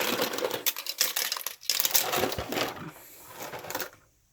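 Dry rigatoni pasta clattering and rattling as it is poured into a crockpot, a dense run of small hard clicks that stops suddenly about four seconds in.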